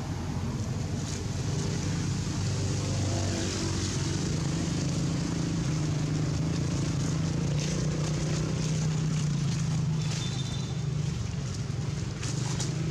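Steady low engine hum with a slowly drifting pitch, like a motor vehicle running.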